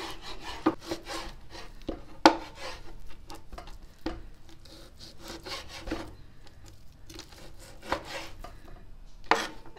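Knife sawing through raw lamb neck meat on a plastic cutting board: a rasping scrape of the blade with irregular knocks as the edge meets the board, the sharpest about two seconds in.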